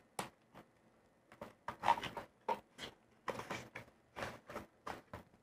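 Paper and thin cardboard being handled as a folded paper manual is pulled out of a small card box: a string of short, irregular rustles and scrapes.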